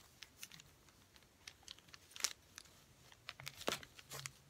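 Wax crayon being scribbled on a lined notebook page: faint, scattered scratchy strokes and light taps.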